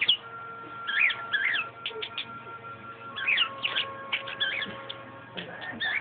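Budgerigar chattering in several short runs of quick, bending chirps and warbles.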